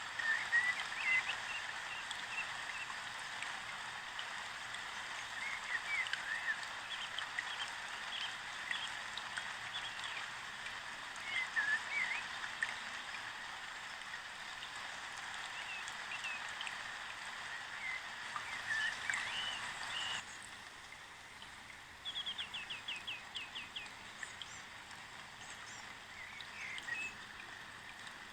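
Small birds chirping and twittering over a steady hiss like running water. The hiss drops away about two-thirds of the way through, and a quick trill of repeated notes follows.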